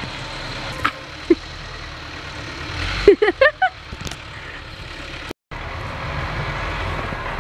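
A baby's quick run of about five short squeaky vocal sounds about three seconds in, over a steady low rumble of wind on the microphone. The sound cuts out for a moment just before the end.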